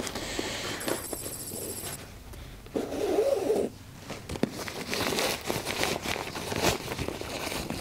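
Packed sleeping bag in its nylon compression sack being unstrapped and opened: webbing straps worked loose through their buckles and the drawstring pulled open, with a brief loud rasp about three seconds in. The second half is dense crinkly rustling of the sack's fabric as its mouth is spread open.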